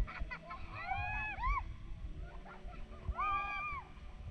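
Two high-pitched, whimpering whine-like cries, each under a second and rising then falling in pitch, about two seconds apart.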